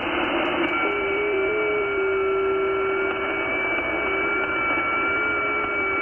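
Shortwave receiver audio of the 40 m FT8 channel at 7.074 MHz: steady band hiss with several thin FT8 digital tones that step slightly in pitch, new transmissions starting about half a second in as the next FT8 period opens.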